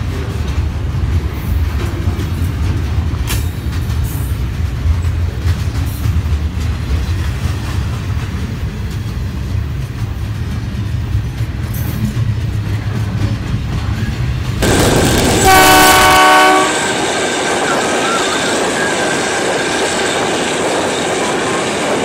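Double-stack container freight train rolling past with a steady low rumble and scattered wheel clicks. About fifteen seconds in, a loud train horn sounds for about two seconds, and the sound then changes to the steady rattle and hiss of a train heard from on board.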